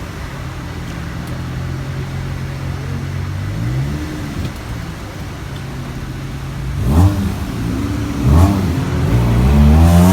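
Turbocharged 1JZ straight-six idling, then blipped: a small rev about four seconds in, and two sharp throttle blips about seven and eight and a half seconds in, each with a short turbo flutter as the throttle snaps shut. Near the end the revs climb steadily.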